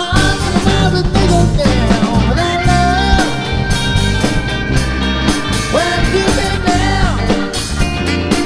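Rock band playing: drum kit, electric bass and electric guitar, with a saxophone and a singing voice carrying the melody over them.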